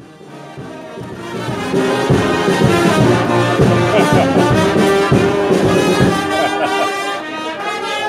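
Brass band music: brass instruments playing a tune over a strong beat, swelling up from silence over the first couple of seconds.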